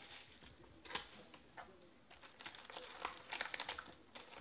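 A cardboard Panini Chronicles card box is handled and opened, and its foil card packs are lifted out, crinkling and rustling. There is one quick rustle about a second in, then a busier run of crinkles and light taps in the second half.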